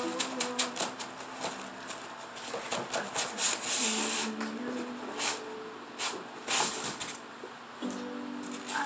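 Rustling, crinkling and scraping of packaging as a boxed item is pulled out of a cardboard shipping box, in many short sharp bursts. A faint low melodic tone sounds underneath now and then.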